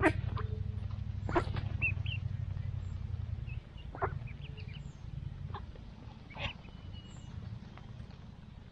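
Mallard hens and ducklings foraging close by: a low rumble for the first three and a half seconds that then fades, a few short sharp sounds every second or two, and a few faint high duckling peeps.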